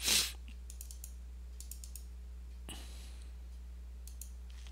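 Computer mouse clicking in small clusters of light clicks, over a steady low electrical hum. A short hiss right at the start is the loudest sound.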